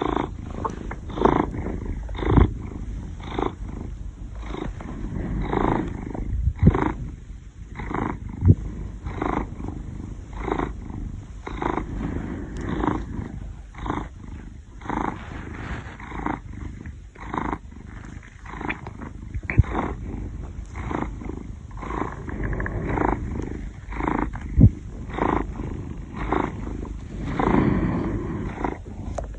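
Rhythmic rasping rumble of breathing, in short pulses roughly once a second.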